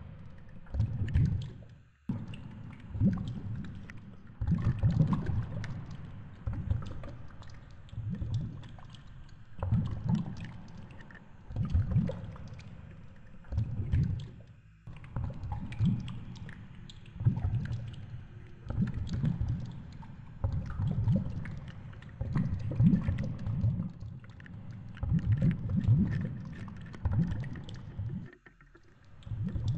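Underwater sound picked up by a GoPro in its waterproof housing on a fishing rig: low, muffled surges of moving water about every second or two as the rig sways, with faint clicks and ticks over them.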